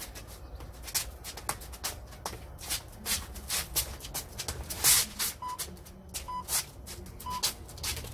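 Boxing shoes scuffing and stepping on stone patio tiles in quick shadowboxing footwork, irregular sharp scrapes several a second. About five seconds in, three short beeps of the round timer sound about a second apart, counting down the end of the round.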